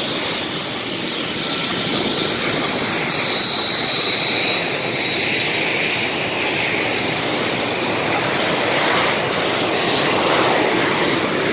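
Jet engines of Canadair CT-114 Tutor aircraft running on the ground while taxiing: a loud, steady high-pitched turbine whine over a rushing noise.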